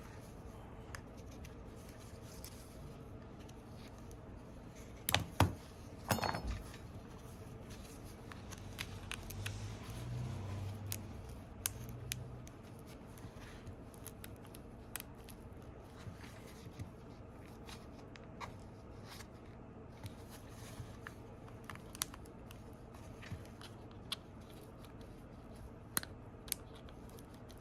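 Scattered small clicks and light scrapes of hand tools and fingers on an opened iPhone 8 as the battery's adhesive strips are worked loose, with two louder clicks about five and six seconds in, over a faint low hum.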